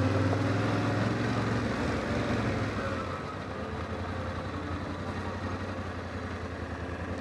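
Yamaha Ténéré 700's parallel-twin engine running at low speed as the bike rolls slowly, getting quieter about three seconds in as it settles to a steady idle.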